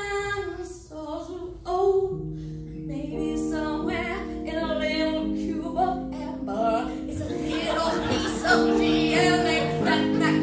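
A woman singing a comic 80s-style rock ballad into a microphone, with sustained accompaniment chords coming in about two seconds in.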